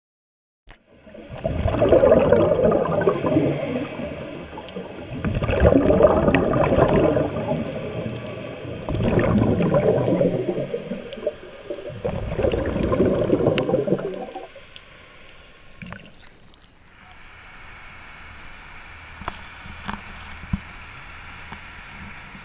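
Scuba regulator exhalations heard underwater through the camera housing: four loud bubbling breaths, each about two to three seconds long, coming every three to four seconds. After about seventeen seconds a quieter, steady dive-boat engine with its wake washing takes over.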